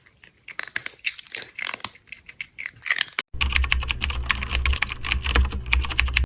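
Fast typing on a computer keyboard: a dense run of quick key clicks. About three seconds in it gets louder, with a steady low hum under the clicks.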